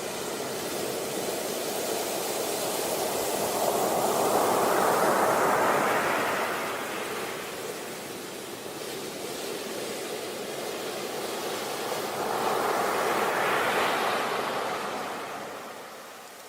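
Sea waves on a beach: two swells of surf, each building and then washing back, about eight seconds apart.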